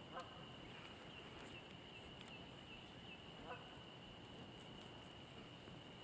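Faint summer evening lakeside ambience: a steady high insect drone, with a short animal call twice, about three seconds apart.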